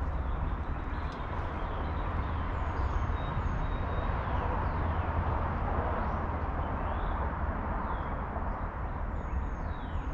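Steady rush of distant highway traffic, swelling slightly in the middle, with small birds chirping in short falling notes.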